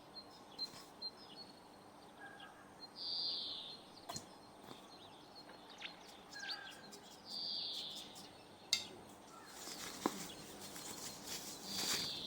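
A bird chirping in the background, three short high calls about four seconds apart, with a few faint clicks in between.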